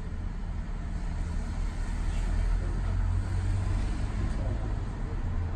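Streetcar interior heard from behind the driver's cab: a steady low hum with road traffic noise, swelling a little in the middle.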